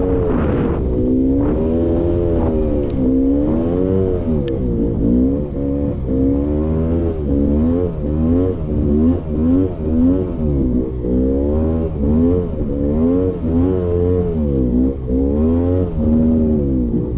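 Polaris Scrambler 400 two-stroke ATV engine under way, its revs rising and falling about once a second as the throttle is worked.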